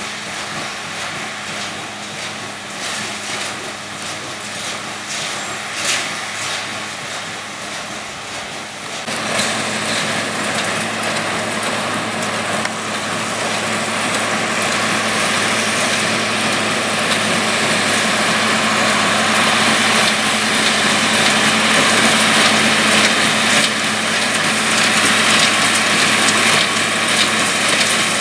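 New Holland tractor engine running steadily while working a small square baler. The sound jumps louder about nine seconds in and then keeps growing louder.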